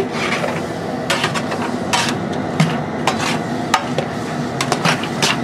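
Long metal paddle scraping and knocking against the bottom and sides of a large aluminum stockpot as a big batch of okra is stirred vigorously to keep it from sticking or burning. Irregular clanks and scrapes come every half second or so.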